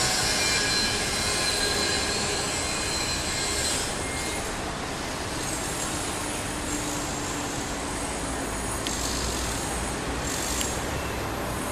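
Steady rumbling noise with high squealing tones over the first four seconds, which then fade, leaving the steady noise.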